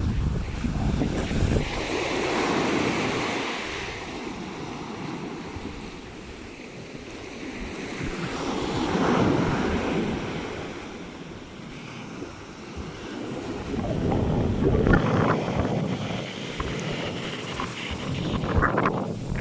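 Rough sea surf breaking on the beach, swelling and falling back about every six seconds, with strong wind buffeting the microphone.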